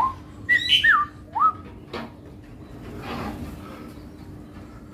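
Straw-headed bulbul (cucak rawa) singing short, liquid whistled phrases of rising and falling glides through the first second and a half, with a sharp click about two seconds in. It is one of a pair singing in tune together ('nyetel').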